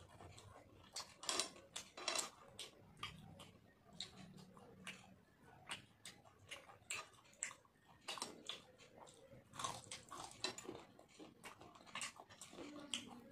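Close, wet chewing and lip smacking from a person eating panta bhat, rice soaked in water, by hand: irregular smacks and squelches, several a second, in uneven clusters.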